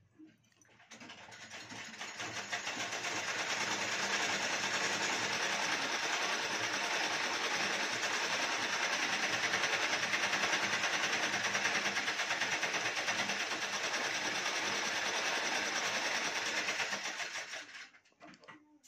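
A steady mechanical running noise with a fast, fine rattle, like a motor or engine, swelling up over the first few seconds, holding steady and fading away near the end.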